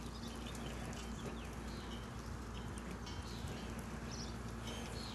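Small birds chirping now and then over a low steady hum.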